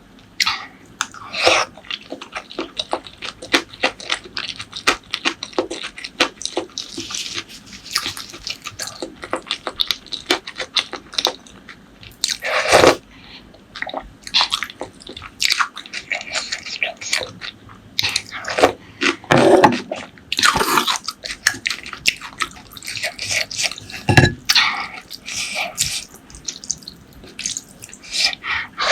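Close-miked eating sounds: chewing and biting, a dense run of small wet mouth clicks with a few louder bites.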